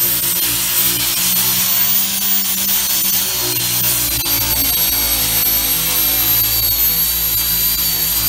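Handheld electric rotary tool running with a steady high-pitched whine as its spinning sanding wheel grinds rust off a van's steel rocker panel, with background music underneath.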